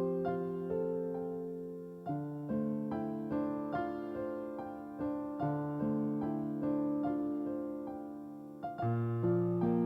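Solo piano playing a slow, gentle piece: notes struck about every half second over held chords that ring out and fade, with a new chord at about two seconds and another near the end.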